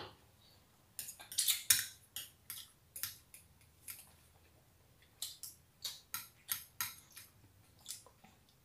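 Spoons clinking and scraping against a glass bowl and plates while eating: many short, irregular clicks from about a second in onward.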